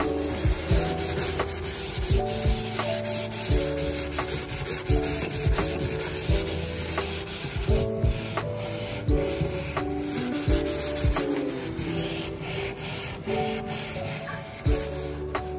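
Steel wool scrubber rubbing and scraping around a stainless steel sink drain, scouring off limescale, with light clicks of the wire against the metal rim. Background music plays underneath.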